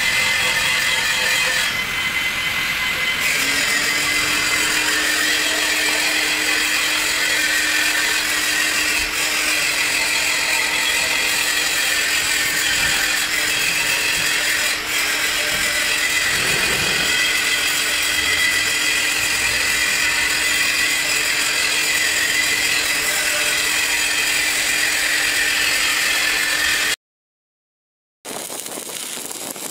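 Steady hiss of an electric welding arc on a steel vessel nozzle, with a steady hum joining a few seconds in. The sound drops out for about a second near the end, then welding noise resumes.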